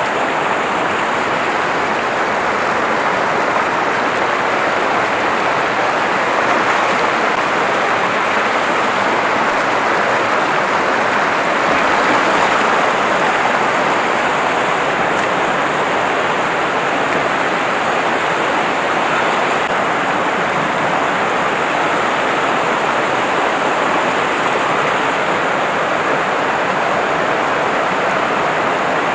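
Shallow river rushing over rocks and boulders, a steady, even noise of flowing water.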